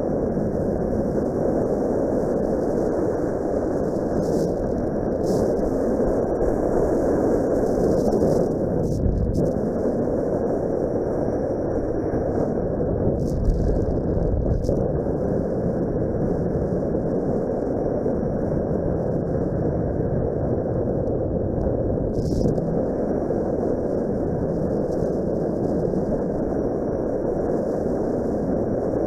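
Steady wind rumble buffeting the microphone of a motorcycle-mounted dash camera while riding at road speed, with a few brief louder gusts.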